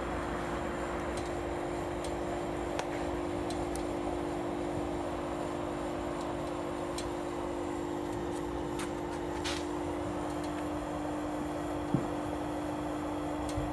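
Orion ecodan HCM10 kerosene jet heater running: a steady fan hum over the rushing of the burner. A few faint ticks, and a single sharp knock about twelve seconds in.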